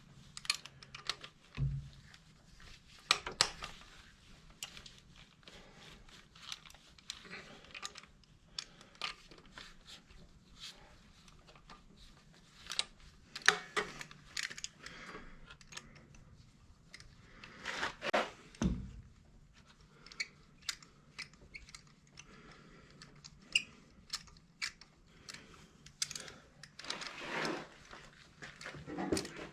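Irregular clicks, clinks and small knocks of hand tools and metal parts being handled at close range, with two dull thumps, one about two seconds in and one a little past the middle.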